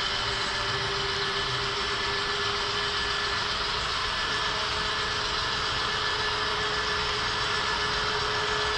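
HO scale model diesel locomotive's DCC sound decoder playing a steady engine-running sound, with an even hiss and a faint constant whine underneath.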